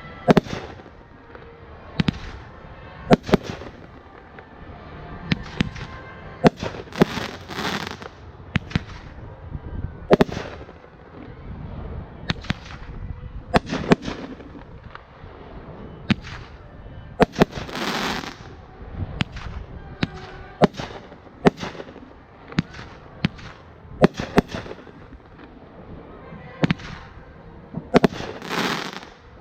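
Fireworks going off: sharp bangs every second or two, several of them followed by about a second of hiss.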